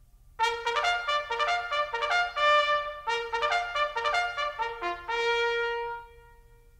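A short trumpet jingle: a quick run of separate notes lasting about five seconds, ending on one held note that fades out.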